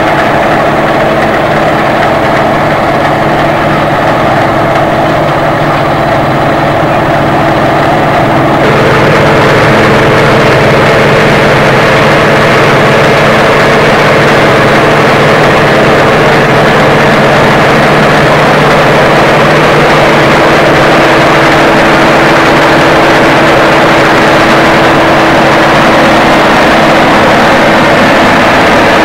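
CLAAS combine harvester running while harvesting: a steady, loud drone of the engine and threshing machinery. It turns suddenly louder and fuller about a third of the way in, then holds steady.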